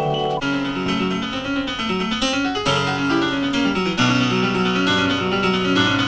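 Instrumental background music led by a keyboard instrument, a melody of notes that change about every half second over lower held notes.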